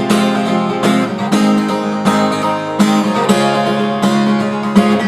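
Acoustic guitar strummed in a fast, accented strumming pattern, with a chord change about three seconds in.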